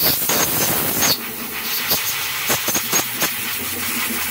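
Compressed-air blow gun hissing as it blows drill shavings out of a drilled-out EVAP vent valve. The hiss is strongest for about the first second, then runs on softer with scattered clicks.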